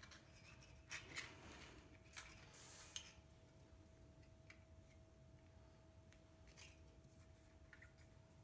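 Faint rustling and crinkling of a thin aluminum flashing strip and its paper template being handled as the strip is bent by hand, in short spells between about one and three seconds in, then a single faint click a few seconds later.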